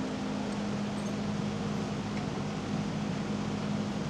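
Steady mechanical hum with an even low drone.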